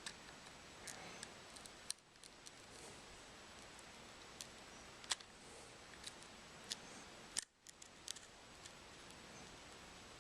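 Faint, scattered sharp clicks and ticks of a razor blade prying and scraping under the cracked glass of a Samsung Galaxy S3 screen, lifting the glass away from its adhesive.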